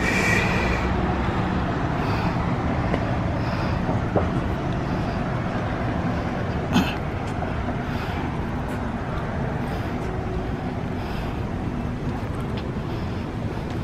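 Steady road traffic noise, with a short sharp knock about seven seconds in.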